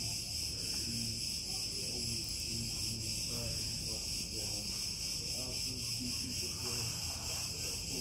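A chorus of cicadas singing: a steady, loud, high-pitched shrill buzz that does not let up.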